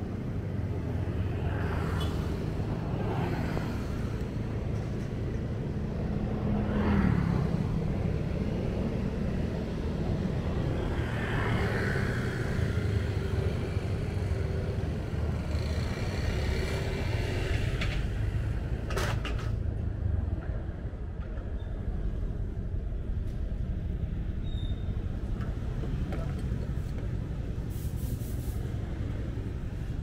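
City road traffic heard from a moving vehicle: a steady low rumble of engines and tyres, with vehicles passing and changing pitch. A short sharp hiss-like noise cuts through about two-thirds of the way in, and another near the end.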